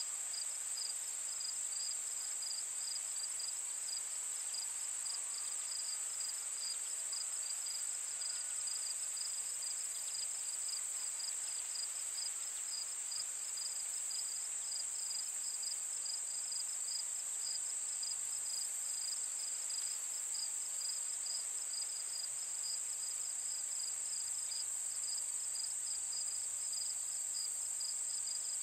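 A chorus of insects such as crickets: a steady high-pitched buzz with a faster, rapidly pulsing trill just below it, unchanging throughout.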